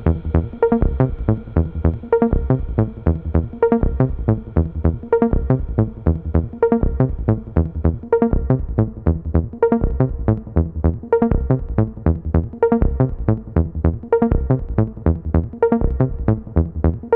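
Electronic background music with a steady, fast beat and a repeating synthesizer pattern.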